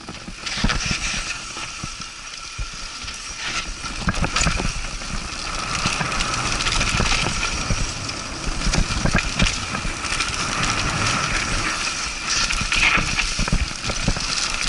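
A mountain bike running fast down a rough dirt trail: tyres rolling over dirt and dry leaves, with the chain and frame rattling and many sharp knocks as it goes over bumps.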